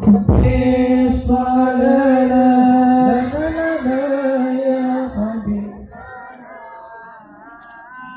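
A hadroh group's sholawat singing over rebana frame drums, heard through a PA sound system: one voice holds long, wavering chanted notes. About two-thirds of the way through the drums stop and the voice carries on alone, quieter.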